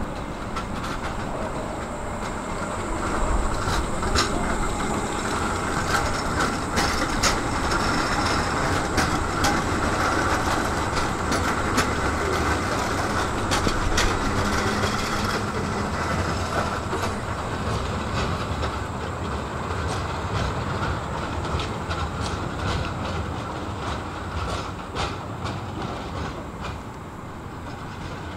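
Tram running on rails: a continuous rumble with many sharp clicks of the wheels on the track, swelling a few seconds in and easing off toward the end.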